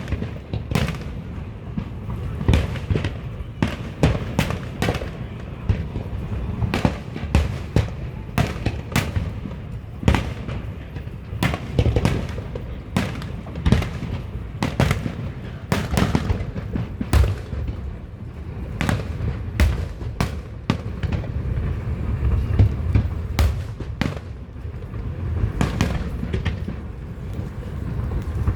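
Aerial fireworks display going off in quick succession: a steady stream of sharp bangs and booms over a continuous low rolling rumble.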